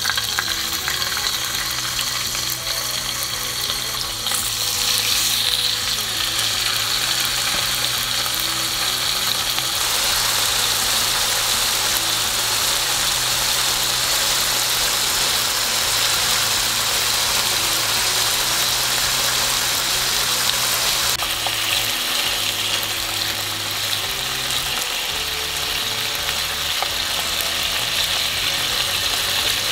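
Slices of soy-marinated pork loin frying in oil in a non-stick frying pan over a low gas flame, sizzling steadily.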